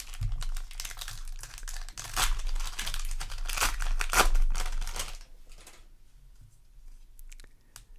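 Trading-card booster pack wrapper crinkling and being torn open, loudest from about two to four and a half seconds in, then dying down to a few light ticks.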